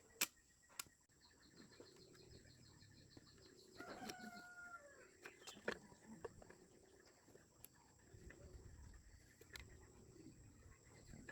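Mostly near silence, with a chicken clucking faintly about four seconds in and a few sharp clicks or taps scattered through.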